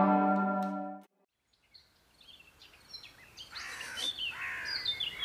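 A held musical note stops about a second in. After a moment of silence, birds start chirping, many short calls falling and zigzagging in pitch and growing denser, over faint outdoor background noise.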